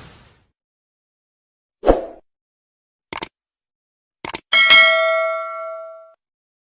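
Sound effects over dead silence: a dull thump about two seconds in, a couple of pairs of quick clicks, then a struck bell-like ding with several overtones that rings and fades out over about a second and a half.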